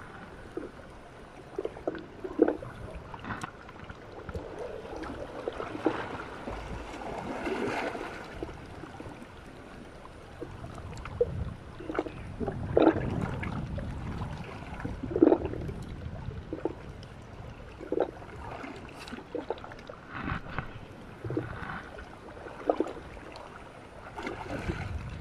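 Small sea waves lapping and sloshing against shoreline rocks, with irregular splashes every one to two seconds.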